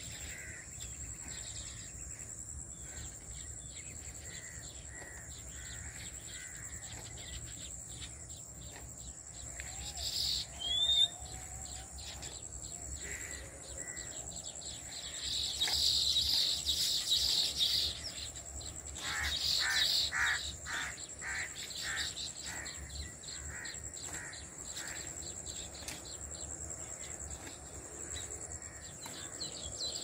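Birds chirping and calling over a steady, high insect buzz, with a louder burst of chatter about halfway through followed by a quick run of repeated calls.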